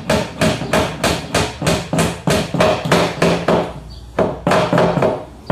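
Hammer driving nails into a 3/4-inch plywood shelf unit: quick, even blows about four a second, a short pause about four seconds in, then a few more blows.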